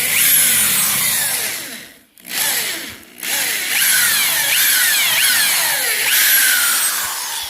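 Power drill boring a hole for a handrail post mount. It runs with a high, gritty whine and stops briefly twice, about two and three seconds in, before running on.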